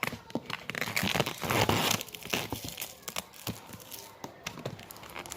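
Packaging being torn open and crinkled by hand, loudest and densest in the first two seconds, then lighter rustles and small clicks as it is handled.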